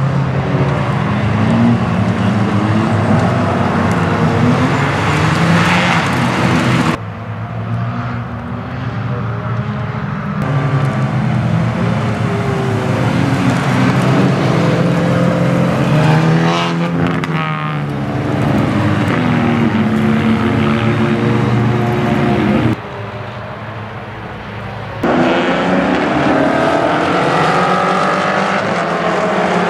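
Racing car engines revving hard on track, the pitch climbing and dropping through gear changes, with the sound cutting abruptly several times between different passes.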